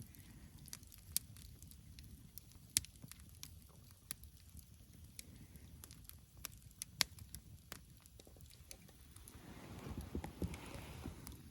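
Wood campfire crackling, with irregular sharp pops and snaps over a low steady hiss of the flames. Near the end, a louder rushing, rustling swell lasts a second or two.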